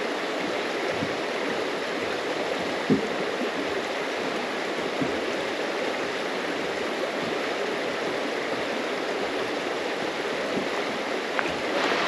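Creek water running steadily over rocks, a continuous rushing, with one faint knock about three seconds in.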